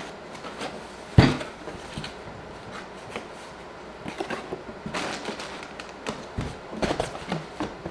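Cardboard Priority Mail box being handled and folded on a table: scattered knocks, taps and rustles of cardboard, with one sharp thump about a second in.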